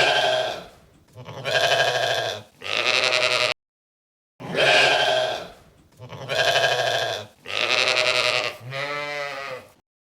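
Sheep bleating: three bleats, a short silence about three and a half seconds in, then four more bleats, the last one near the end.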